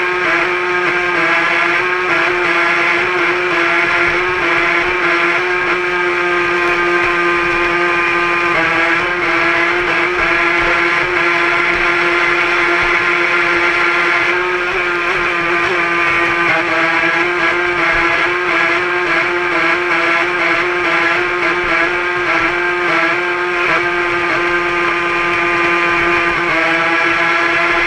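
RC racing boat motor running flat out, a loud steady high-pitched buzz with its pitch shifting a little every few seconds.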